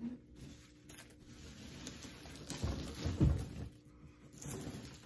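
Popcorn rustling and a low thump as a person climbs onto and lies down on a popcorn-covered cushioned bench. The thump is loudest a little past three seconds in.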